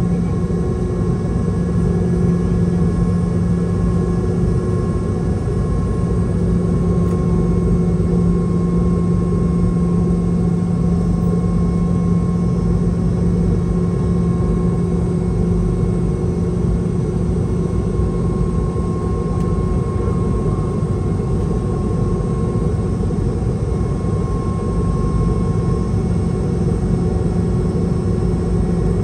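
Steady cabin noise inside a Boeing 717-200: its two rear-mounted Rolls-Royce BR715 turbofans running at a constant setting, a continuous low drone with a faint steady whine over airflow hiss.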